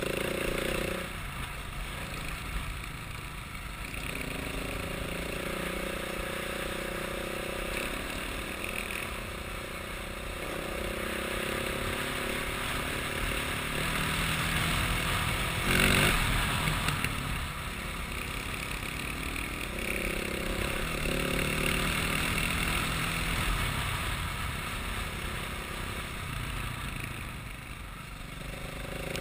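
A motor vehicle's engine running, its pitch shifting up and down several times, over a steady rush of wind and road noise, with a brief loud clatter about halfway through.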